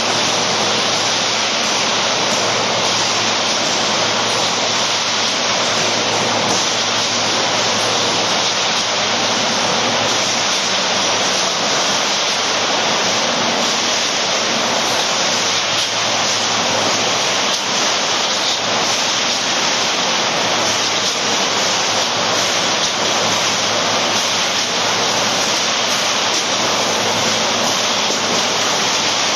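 Steady rushing machinery noise with a faint low hum, from a steel coil cut-to-length line running. No distinct shear strokes stand out.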